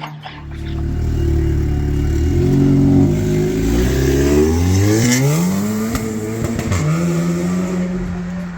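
Audi S3 8V's turbocharged 2.0-litre four-cylinder, fitted with a 3-inch Scorpion downpipe and APR intake, running with a loud low rumble, then revved. Its pitch climbs for about two seconds before falling back to a steady idle near the end.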